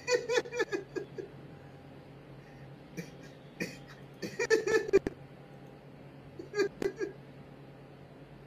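A man laughing in several short bouts of quick chuckles, with pauses between them.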